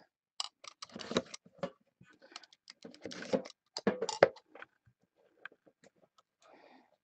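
Hands handling small cardboard card boxes on a metal trading-card tin: scattered clicks, taps and brief scrapes. They are busiest about a second in and again from about three to four and a half seconds, then thin out to a few light ticks.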